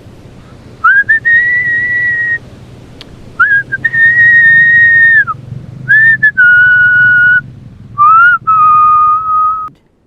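A person whistling a slow tune: four long held notes, each a second and a half to two seconds, the later ones lower in pitch.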